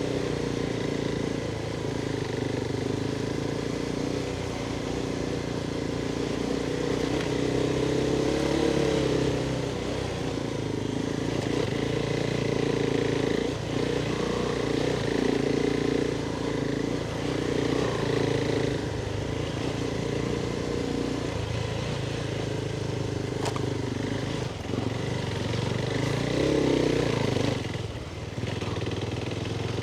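Adventure motorcycle engine running at fairly steady revs while riding, its pitch rising and falling a little with the throttle, easing off briefly near the end.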